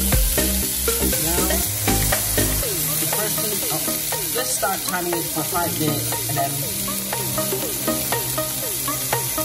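Raw pork chops sizzling steadily on the hot ridged plate of an electric panini-style contact grill.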